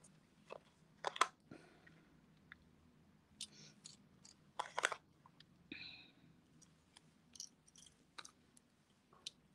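Faint clicks and crackles of thin copper weaving wire being handled between the fingers, with louder clicks about a second in and again just before five seconds.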